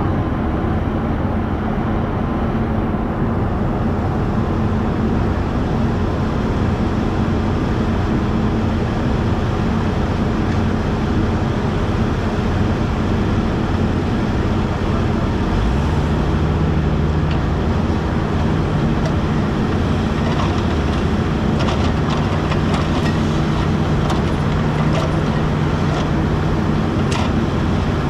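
Kubota U55 mini excavator's diesel engine running steadily, its note stepping up to a higher, steady pitch about halfway through. Scattered light knocks and rattles come near the end.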